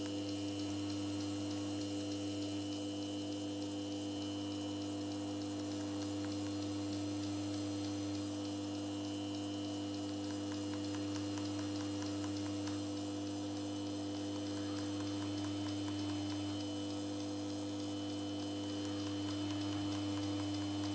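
A machine running steadily, a constant hum with several fixed tones under a fine, even crackling hiss.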